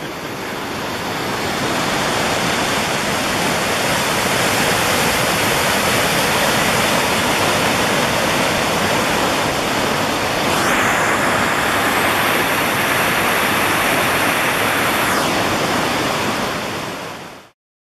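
Rushing white water of a river rapid pouring over rocks: a steady, dense rush that builds over the first couple of seconds and grows brighter and hissier for a few seconds past the middle. It cuts off suddenly shortly before the end.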